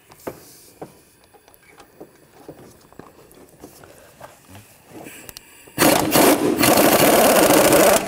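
Scattered light clicks and clinks of a socket tool against metal, then, about six seconds in, an impact gun runs in one continuous burst of a little over two seconds, loosening a catalytic converter nut on the exhaust manifold.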